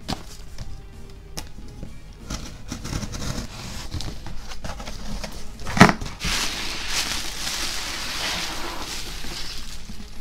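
Packaging being opened by hand over background music: scattered clicks and rustles, one sharp knock a little over halfway, then about three seconds of steady crinkling of wrapping.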